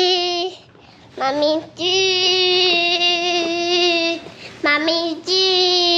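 Toddler singing wordless, long held notes at one steady high pitch, each swooping up as it starts. The longest note lasts about two seconds in the middle, and another is held near the end.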